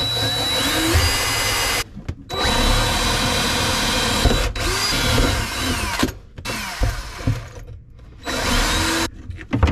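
Cordless drill with a 5/32-inch bit drilling through a granite composite sink (crushed stone bound in resin), in five short bursts with brief pauses, the motor whine rising as each burst starts. It is boring a ring of holes around a knockout to weaken it.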